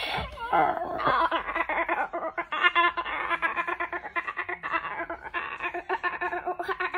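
A young girl babbling nonsense syllables in a high voice, a fast, even, sing-song run of gibberish like speaking in tongues.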